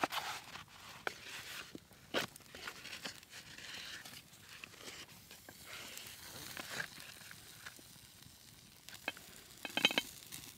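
Wood campfire crackling and popping under a wire grill grate, with paper plates rustling as they are used to grip a glass casserole dish. Near the end comes a short rattle and clink as the dish is taken hold of on the metal grate.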